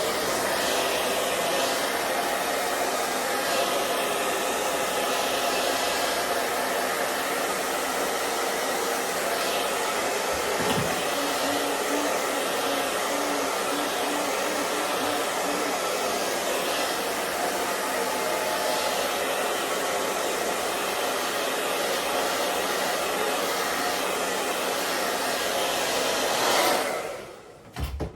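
Handheld hair dryer blowing steadily, switched off near the end.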